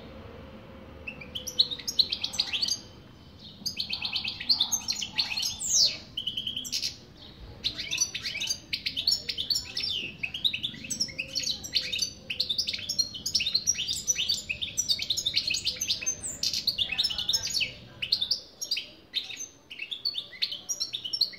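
Male European goldfinch singing a fast twittering song of quick, high chirps and trills. It starts about a second and a half in, breaks off briefly twice, then runs on almost without pause.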